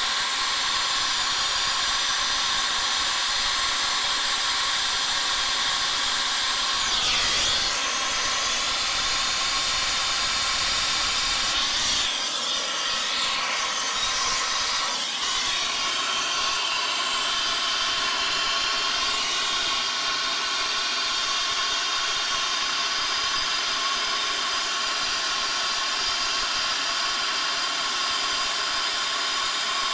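Air-acetylene brazing torch flame hissing steadily on a copper refrigerant line joint. The hiss changes briefly about seven seconds in and again between about twelve and fifteen seconds in.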